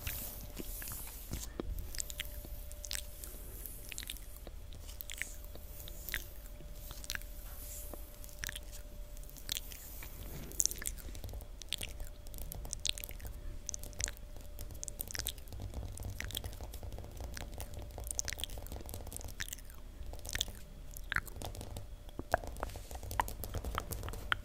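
Long fingernails tapping and scratching on a hard floor in quick, irregular clicks, close to the microphone.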